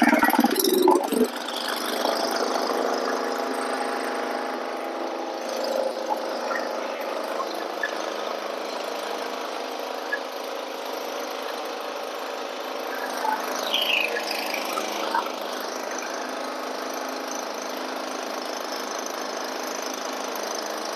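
Wood-Mizer LT40 Wide portable band sawmill running steadily, its band blade sawing through an oak log. It is louder in the first second, then settles to an even mechanical whine.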